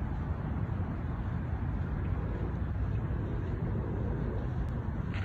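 Steady low rumble of background noise, with a few faint clicks near the end.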